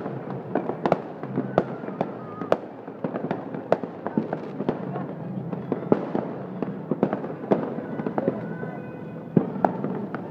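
Aerial fireworks going off overhead: an irregular run of sharp bangs and cracks, one to three a second, with a steady low rumble of the display underneath.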